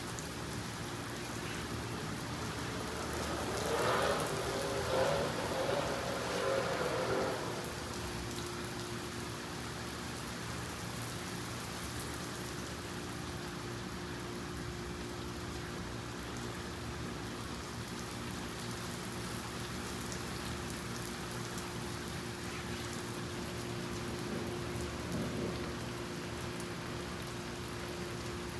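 Steady rain falling, an even hiss, with a louder swell lasting a few seconds about four seconds in.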